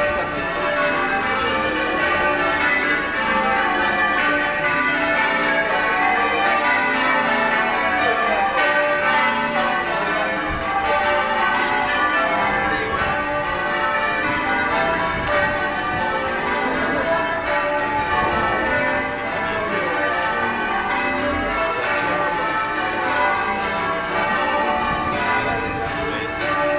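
Durham Cathedral's tower bells in change ringing: a continuous run of bell strikes following one another in quick succession, their tones overlapping and ringing on.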